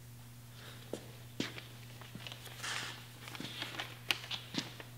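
Handling noise: paper rustling and a few light clicks as a letter and a pair of sunglasses are handled, getting busier toward the end, over a steady low hum.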